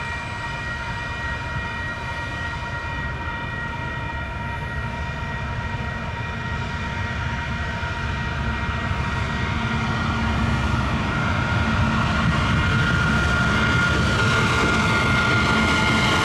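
Level-crossing alarm bells ringing steadily while a KiwiRail diesel locomotive approaches. Its deep engine rumble grows louder through the second half and is loudest near the end as the locomotive reaches the crossing.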